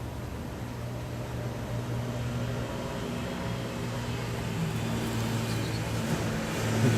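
A steady low motor hum over an even background hiss, growing slightly louder toward the end.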